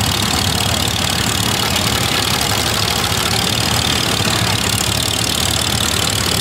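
Vintage McCormick-Deering Farmall tractor's four-cylinder engine running steadily near idle as the tractor drives slowly past close by.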